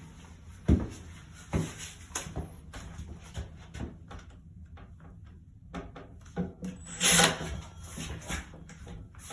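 Wood and tools being handled: scattered knocks and rubbing, with a sharp knock about a second in and a brief scraping rush around seven seconds in. No drill is running.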